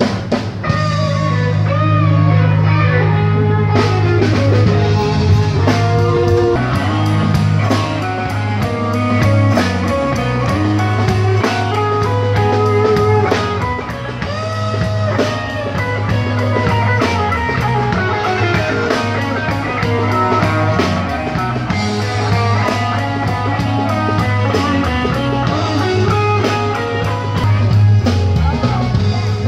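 Rock music with guitar, bass and a drum kit, playing steadily and fairly loud.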